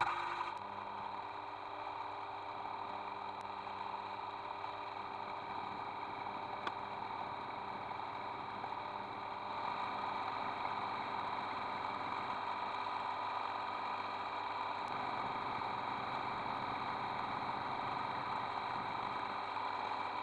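Mini lathe running at a steady speed, a whine made of several steady tones from its motor and drive, while a spiral-fluted cutter in the chuck cuts into a metal rod held in the tool post. It gets slightly louder about halfway through.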